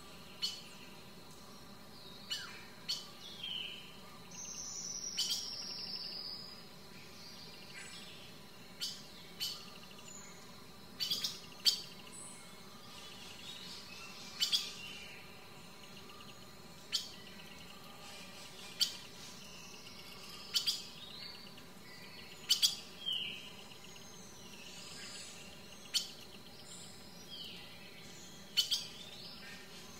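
Wild songbirds calling: short, sharp, high chirps every second or two, with a longer falling whistled call about five seconds in.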